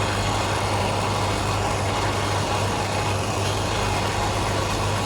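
Steady hiss of a brazing torch flame heating copper refrigerant pipe on a compressor, over a constant low hum.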